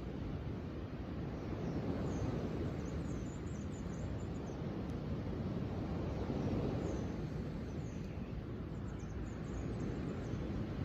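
Steady outdoor rushing noise that swells gently now and then, with small birds chirping faintly and high in pitch at a few moments.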